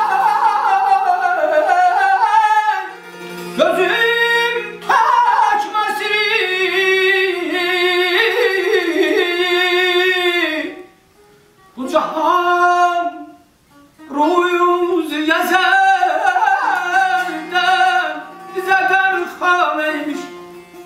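Male mugham singer in the Segah mode, holding long, heavily ornamented and wavering vocal phrases. A plucked long-necked lute accompanies him. The voice breaks off briefly twice in the middle, about eleven and fourteen seconds in, leaving a few plucked notes.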